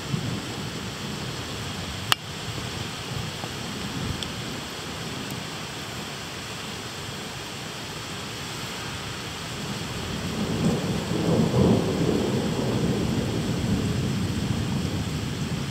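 Steady rain falling in a thunderstorm, with a long low rumble of thunder that swells about ten seconds in and slowly fades toward the end. A single sharp tick about two seconds in.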